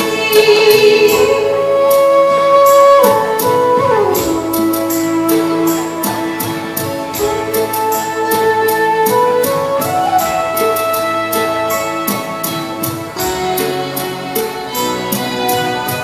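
Live band music: a sustained melody line that slides between notes, carried over a steady, even percussion beat.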